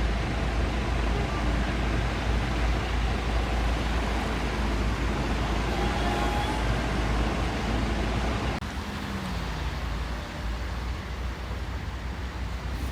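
Steady vehicle and traffic rumble with a strong low hum. About eight and a half seconds in, the sound drops suddenly and carries on quieter, with a low engine note sliding down.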